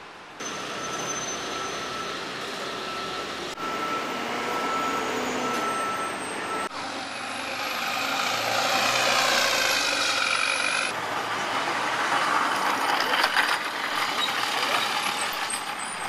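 City street traffic noise, changing abruptly several times where shots are cut together. About halfway through, a vehicle passes close and is the loudest sound.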